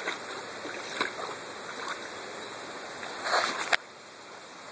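A dog wading through shallow water, its legs splashing, with a louder splash a little after three seconds in.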